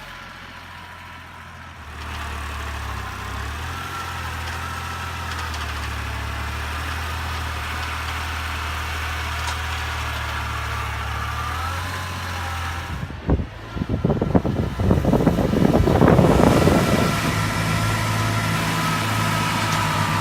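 Kubota L2800 compact tractor's diesel engine running steadily, with a wavering whine above the engine note. About two-thirds of the way in the sound grows louder and rough, with knocks and clatter for a few seconds.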